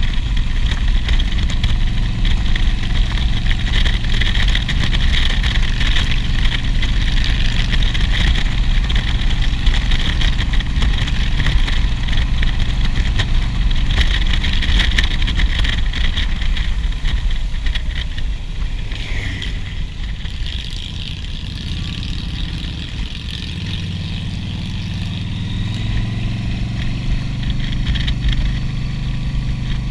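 Motorcycle engine running at road speed with wind rushing past the rider. The engine eases off about two-thirds of the way through, as for a tight curve, then pulls again near the end.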